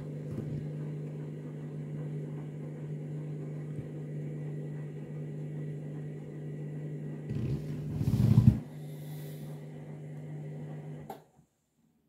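Candy washing machine's drum motor running with a steady hum as the drum turns the load in soapy water during the main wash. There is a brief, louder surge of noise about seven seconds in, and the sound cuts off suddenly near the end.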